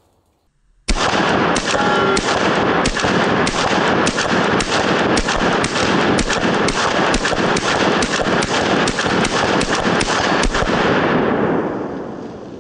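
Two 9mm Staccato 2011 pistols, a Staccato P and a Staccato C2, fired together in rapid alternation, about twenty shots. The shots start about a second in and run with hardly a gap for nearly ten seconds, the echo filling the space between them. They stop near the end and the echo dies away.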